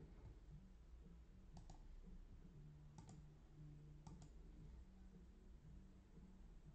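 Near silence: a low steady hum with three faint double clicks, spaced a little over a second apart.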